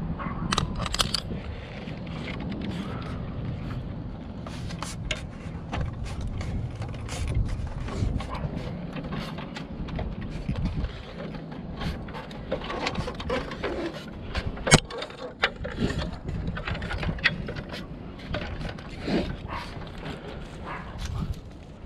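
Scattered clicks, clanks and scrapes of hand tools and gear being handled on a wooden utility pole and a ladder, with one sharp, loud click about fifteen seconds in, over an uneven low rumble.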